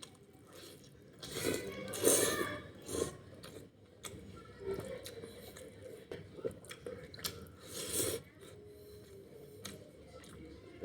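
A man chewing mouthfuls of a vegetable dish close to the microphone, with wet chewing and several louder crunchy bites, the loudest about two seconds in and again about eight seconds in.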